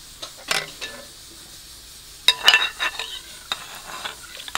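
Kitchenware clinking and scraping: a few light knocks, then a cluster of sharp clinks with a brief ring about two seconds in.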